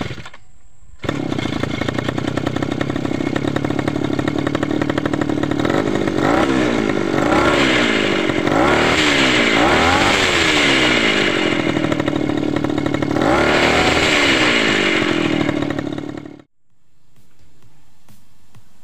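Small petrol brush-cutter engine rigged as a homemade outboard motor starts about a second in and runs loud, revved up and down several times so its pitch rises and falls, with its propeller churning water. The engine sound cuts off suddenly near the end, leaving faint background music.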